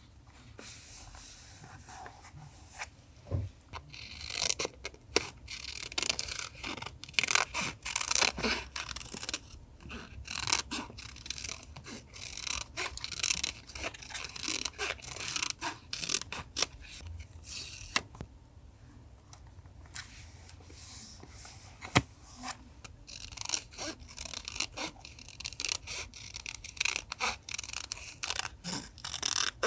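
Paper crafting sounds from collage journaling: paper sliding, rubbing and rustling, broken by many sharp clicks and snips.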